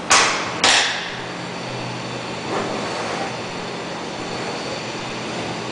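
Two short bursts of a power impact wrench, about half a second apart, snugging the stuffing box bolts down through a 3/4 inch socket. A fainter knock follows about two and a half seconds in, over a steady hum.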